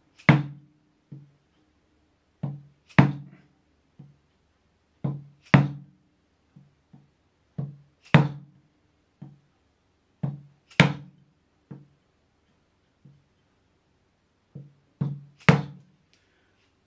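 Mallet blows on a wood chisel chopping out a hinge recess in a timber board. Roughly every two and a half seconds a light setting tap is followed by a hard, briefly ringing blow, six hard blows in all, with a longer pause near the end.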